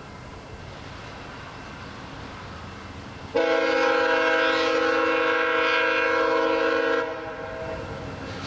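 GE P42DC locomotive (VIA Rail 902) sounding one long horn blast, a steady multi-note chord that starts suddenly about a third of the way in and cuts off after about three and a half seconds. Before and after it, the approaching train's steady rumble.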